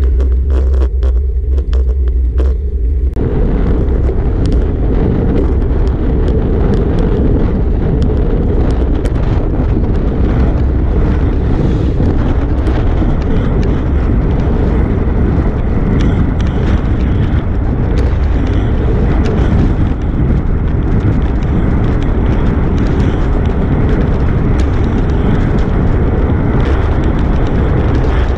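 Wind buffeting and road rumble picked up by a GoPro action camera's microphone on a moving road bike, a loud steady roar with scattered small knocks from road vibration. The sound changes abruptly about three seconds in, where the footage cuts.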